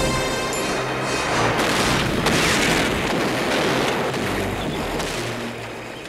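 A wooden river boat blowing up in a film explosion effect: a long rumbling blast with crackle and repeated booms, fading over the last second, mixed with film score music.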